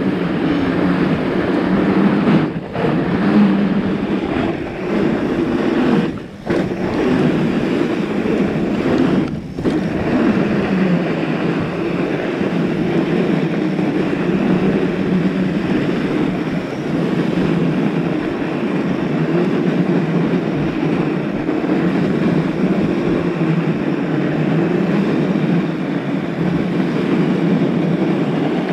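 Fat bike's wide knobby tires rolling fast over packed snow, with wind on the action camera's microphone: a steady low rumble that drops out briefly three times in the first ten seconds.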